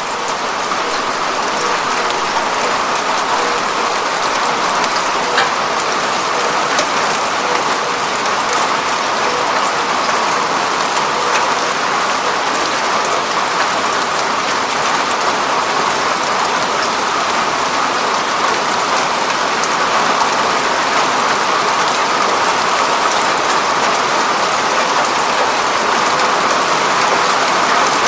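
Steady rain falling on a window pane, an even hiss of drops with a few sharper ticks standing out now and then.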